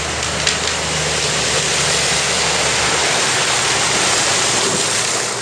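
Loud, steady rush of white water as an inflatable canoe runs down a small river drop, with water splashing against the hull.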